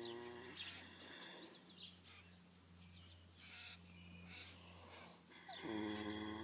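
A sleeping horse snoring: a low, drawn-out snore at the very start and another beginning near the end, the louder of the two. Small birds chirp in the background.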